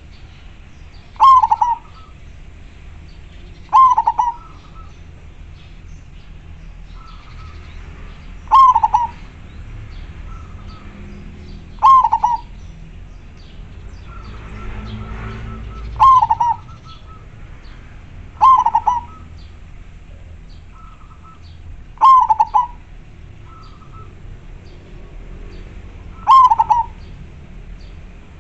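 Zebra dove (perkutut) cooing: eight short, loud call phrases repeated about every three to four seconds, with a few fainter notes between them, over a low steady hum.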